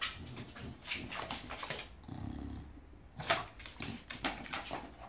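English bulldog making short low growly noises while shaking an object in its mouth, with scattered clicks and knocks from its movements on the wooden floor. The loudest knock comes a little after three seconds in.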